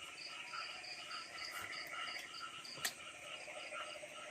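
Chorus of crickets and frogs: several overlapping trains of short chirps repeating evenly at different pitches, with one sharp click a little before three seconds in.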